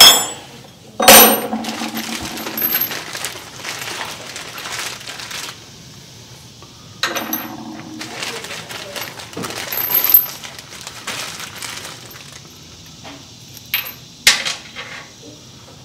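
Small metal parts clinking and clattering against a hard surface as they are handled and set down, with rustling between the clinks. The loudest clink comes about a second in, and more follow at irregular intervals.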